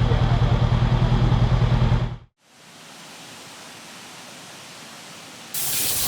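A motorbike engine running with a fast, even pulsing, cut off abruptly after about two seconds. A faint steady hiss follows, then a loud, steady rushing noise starts suddenly near the end.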